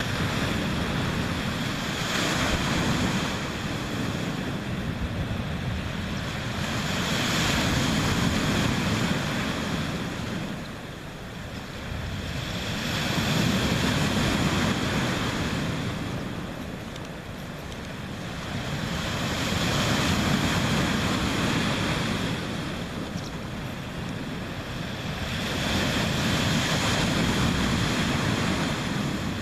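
Sea waves breaking and washing on the shore, the surf swelling and falling back about every six seconds, with wind on the microphone.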